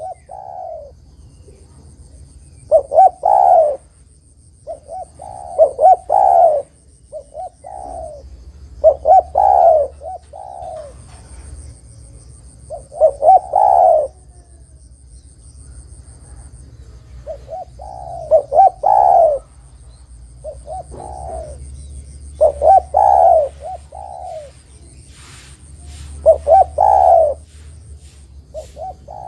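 Spotted dove (derkuku) cooing: a phrase of several quick coos, repeated about every three seconds, with a longer pause midway through.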